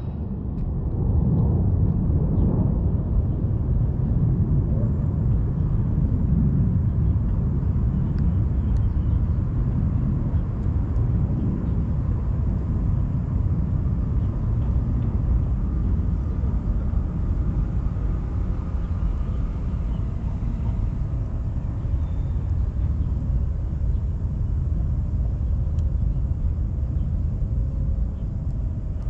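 Steady low outdoor rumble, strongest in the bass, with a few faint scattered ticks.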